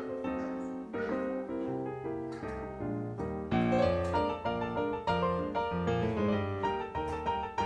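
Background piano music: a tune of quick, stepping notes over a lower bass part, which gets louder about three and a half seconds in.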